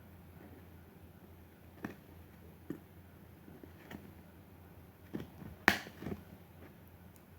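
A delivery package being handled and opened by hand: a few scattered soft taps and clicks, with one sharper snap a little under six seconds in.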